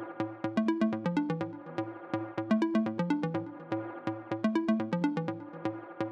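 Electronic background music with a steady drum-machine beat and a repeating synth bass line.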